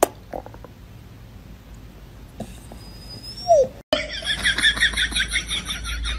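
A dog gives a short falling whine, then after a brief gap a rapid run of high-pitched squeaky animal cries follows, about six a second.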